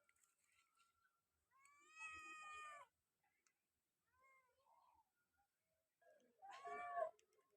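A kitten meowing: a long, drawn-out meow about a second and a half in, a faint short one in the middle, and a louder, shorter meow near the end.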